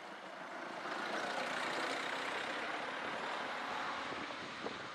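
A road vehicle passing close by on the street: its tyre and engine noise swells about a second in and fades away over the next few seconds. A small click near the end.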